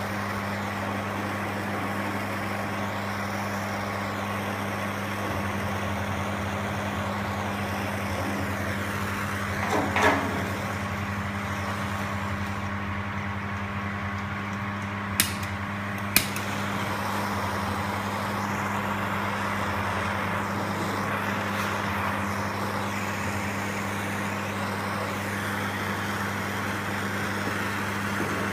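Steady mechanical drone with a low hum. One knock comes about ten seconds in, and two sharp clicks about a second apart come around fifteen seconds in.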